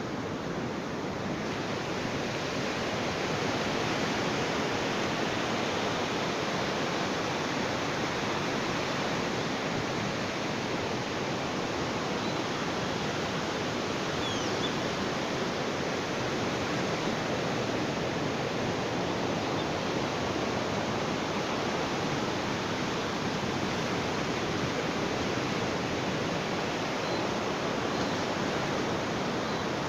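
Ocean surf: a steady, even rush of breaking waves with no distinct swells rising and falling.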